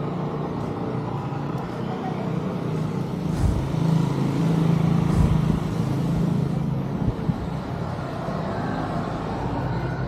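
A motor vehicle engine running with road traffic noise, a steady low hum that grows louder in the middle few seconds and then eases off.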